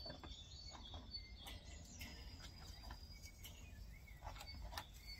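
Faint background with a steady low rumble, birds chirping now and then, and a few light clicks as wire fish baskets are handled on the charcoal grill's grate.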